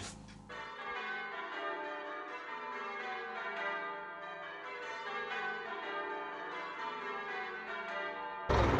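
Church bells ringing a peal, many overlapping bell tones, starting about half a second in. The bells mark the end of the war. A louder, rushing noise takes over near the end.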